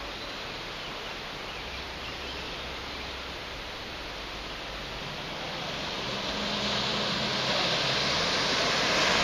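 Steady rush of floodwater running over the road. From about five seconds in, a pickup truck drives through the water toward the listener, its engine hum and the swish of water pushed aside by its tyres growing steadily louder.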